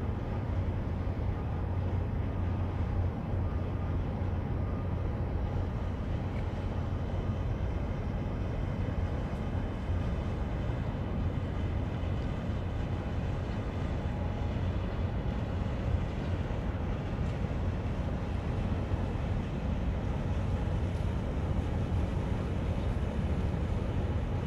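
Steady low engine drone of a small harbour boat running across open water, growing slightly louder near the end as it comes closer.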